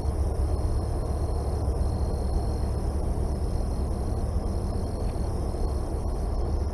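Steady low rumble with no clear events, and a faint thin high tone coming and going over it.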